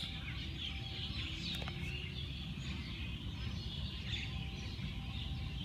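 Many small birds chirping and twittering over a steady low rumble.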